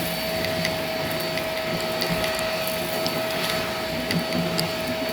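Shark vacuum cleaner running steadily with a constant high motor whine, with scattered sharp ticks of bits being picked up.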